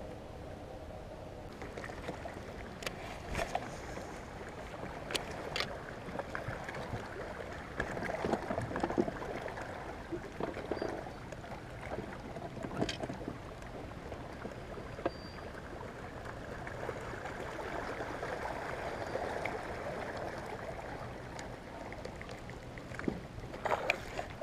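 Water lapping and sloshing against a small fishing boat's hull as the boat moves along the bank, with a few sharp knocks and a cluster of louder ones near the end.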